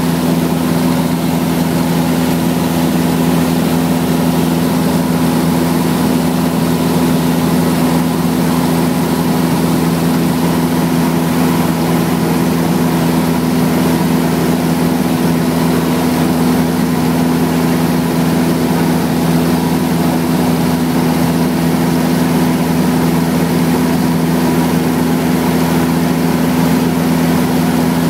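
Light high-wing aircraft's engine and propeller droning steadily in level flight, heard from inside the cabin with a constant rush of air noise.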